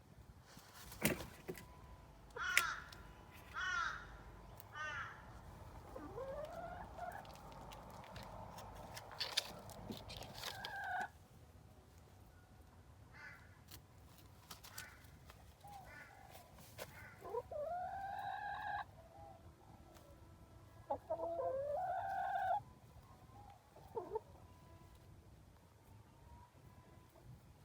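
A chicken making whiny calls: a few short calls, then long drawn-out ones that rise and fall in pitch, repeated several times with pauses between.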